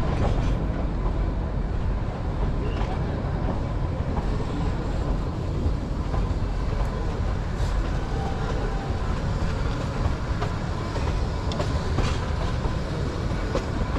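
Kalka–Shimla narrow-gauge toy train running on the track: a steady rumble of wheels on rails with faint scattered clicks.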